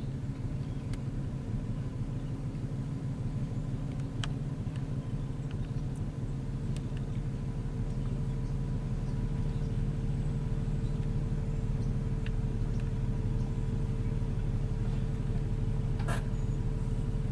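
Steady low engine rumble with a thin steady hum above it and a few faint clicks, growing slightly louder about halfway through.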